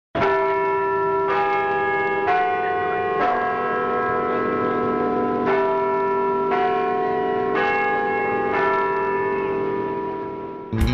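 Church bells of different pitches struck in turn, roughly one a second with a short pause in the middle, each note ringing on. The ringing fades near the end as a strummed guitar comes in.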